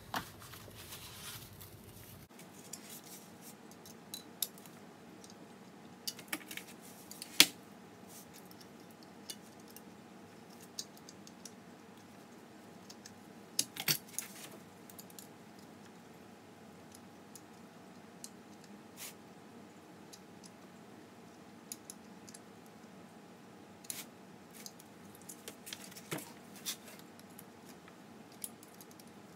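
Sparse small metallic clicks and taps as a steel pick pulls back and lets go of the brush springs on a 6-volt Autolite starter, seating the carbon brushes in their holders. The sharpest clicks come about 7 and 14 seconds in, over a faint steady hum.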